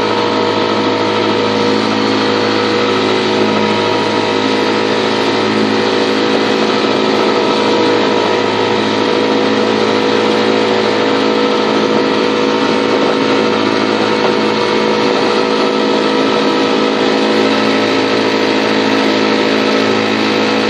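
1950 British Seagull Century two-stroke outboard motor running steadily at a constant speed, pushing a dinghy along.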